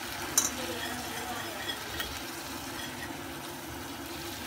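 Jaggery and coconut filling sizzling softly in a metal pan on the gas, with a steel spoon clicking against the pan about half a second in and tapping faintly a couple of times after.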